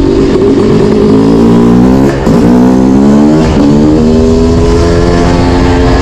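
Yamaha YZ250 two-stroke engine accelerating hard through the gears. Its pitch climbs, drops at an upshift about two seconds in and again around three and a half seconds, then holds a high, steady rev.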